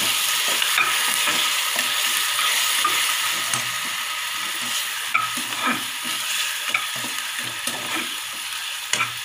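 Small onions sizzling in hot oil in an aluminium pressure-cooker pan, stirred with a perforated metal ladle that clinks and scrapes against the pan a few times. The sizzle slowly eases.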